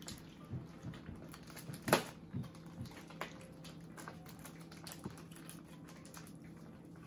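Irregular light clicks and crackles of a clear plastic cake-container lid being handled and pried open, with one sharper snap about two seconds in.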